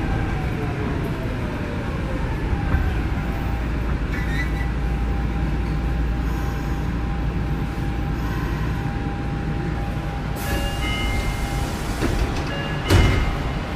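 Nagoya subway 2000 series train with a Mitsubishi GTO-VVVF inverter, heard from inside as it brakes into a station: a steady whine over running rumble and loud air conditioning. Near the end a hiss and short high tones come in, and a loud thump follows about a second before the end.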